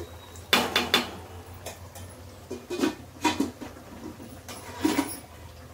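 Metal spatulas and a slotted ladle clinking and scraping against steel woks (kadhai) on the stove: a few short sharp clinks about half a second to a second in, a couple more around three seconds, and one near five seconds, over a steady low hum.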